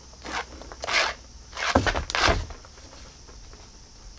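Cat play with a wand toy in a cardboard box: a few short scraping rustles as the toy is swept across the floor and the cat shifts against the cardboard, with two soft thumps about two seconds in.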